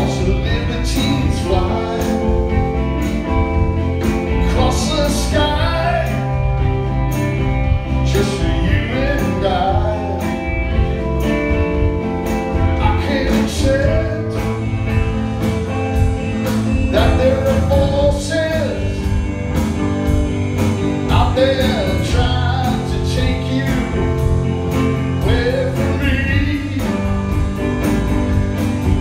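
Live rock band playing a song: electric guitar, bass guitar and drums, with a male lead vocal.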